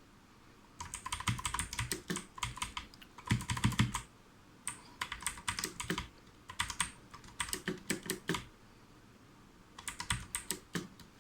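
Armaggeddon MKA-2C tenkeyless mechanical keyboard with clicky blue switches, keys pressed and held in rapid bursts of clicks, as in gaming. There are three bursts with short pauses between, the densest one about three and a half seconds in.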